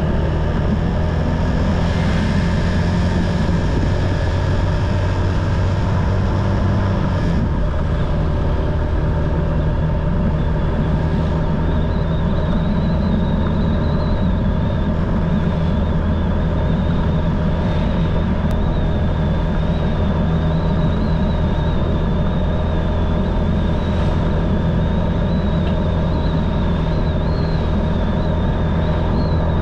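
Motorcycle engine running steadily while riding along a road, with road and wind noise; a thin, wavering high whine joins about twelve seconds in.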